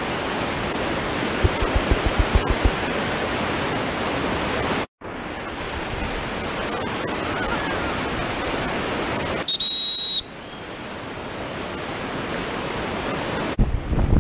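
Steady rushing of whitewater rapids, briefly cut off about five seconds in. Past the middle, a short, loud, shrill high-pitched tone lasts under a second. Near the end, wind buffets the microphone over the rushing water.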